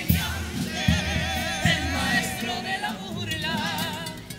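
A youth comparsa chorus singing together with wide vibrato, backed by guitars, with a few bass drum strokes in the first two seconds. The singing eases off near the end.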